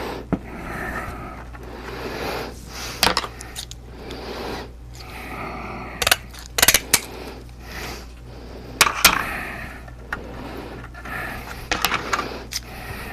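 Hands working on a 3D-printed plastic helmet: scattered sharp clicks and taps, a few in quick clusters, over a light rustling and a steady low hum.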